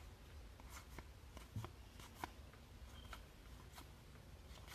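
Faint, scattered ticks and light rustles of trading cards being handled and flipped through, just audible above room tone.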